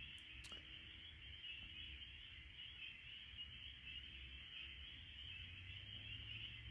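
Faint chorus of spring peepers: a steady, high-pitched blur of many calls, with a low rumble underneath and a brief click about half a second in.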